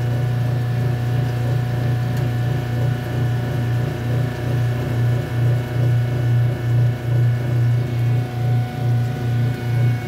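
Top-loading washing machine running with water in the drum, giving a loud low hum that starts to pulse about twice a second about halfway through. The owner takes this noise for a sign that the machine is failing: it had done it before, stopped, and has started again.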